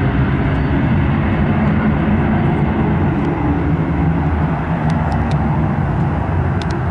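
Cessna Citation Sovereign's twin Pratt & Whitney Canada PW306C turbofans at takeoff power as the jet lifts off and climbs away: a loud, steady jet noise heavy in the low end, easing slightly in the second half. A few faint clicks come near the end.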